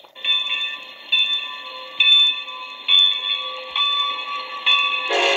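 Strasburg Rail Road steam locomotive's bell ringing, about one stroke a second, as the train approaches. Near the end its steam whistle starts to blow, loud.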